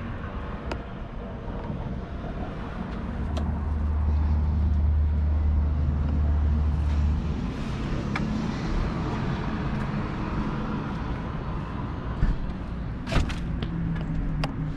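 Power tailgate of a 2014 Range Rover Sport opening on its electric lift, a steady low motor hum lasting a few seconds. There is a sharp knock near the end.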